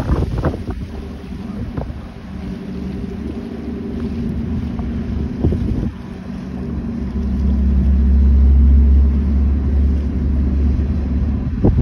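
Ferry's diesel engines running with a steady low drone heard from on deck, swelling louder about seven seconds in. Gusts of wind buffet the microphone near the start and again near the end.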